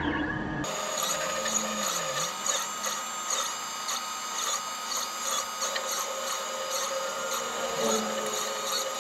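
Stepper motors of a 3040T desktop CNC machine driving the gantry and head through a drag-knife vinyl cut, a mechanical whine whose pitch shifts and glides as the axes speed up, slow and change direction.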